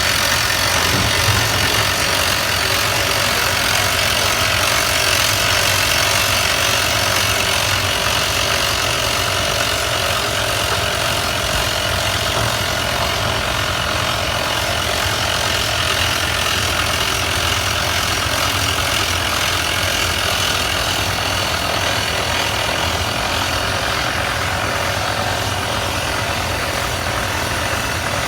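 Hard-rock drilling machine running, a loud, steady mechanical din with a low engine rumble underneath.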